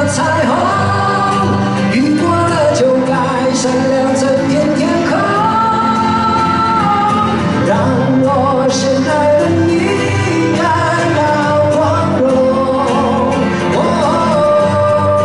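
Live pop concert performance: a male voice singing a melody with sustained notes over band accompaniment.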